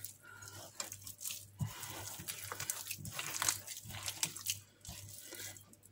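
A bare hand squishing and kneading raw minced chicken mixed with soaked oats in an enamel bowl, giving soft, irregular squelches.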